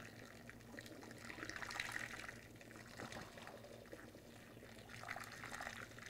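Hot wort poured through a plastic funnel into a glass carboy of cold water: a faint steady trickle and splash of liquid that swells about two seconds in and again near the end.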